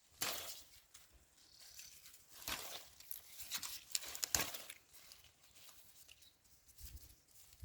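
Dry cowpea vines and leaves rustling and crackling as they are pulled apart and plucked, in several short bursts: one near the start, one around two and a half seconds, and a cluster around four seconds.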